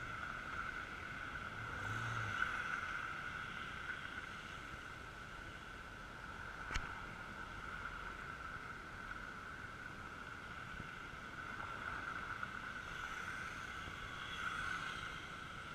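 Seafront street ambience of passing traffic, with a steady high-pitched hum throughout and a single sharp click about seven seconds in.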